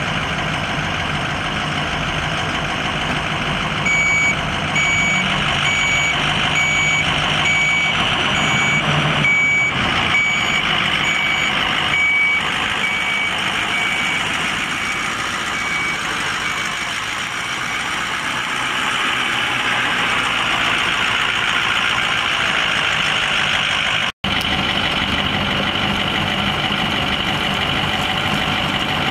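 Truck's 6.0L V8 turbo diesel running steadily, with a backup alarm beeping about once a second from about four seconds in and fading out a few seconds past the middle. The sound cuts out for an instant near the end.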